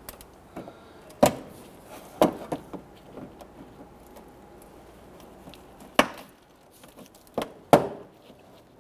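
Plastic push-pin retainers in a car's fender liner being pried out with a trim tool: a series of sharp plastic clicks and snaps, a few seconds apart, the loudest about a second in, about six seconds in and near the end.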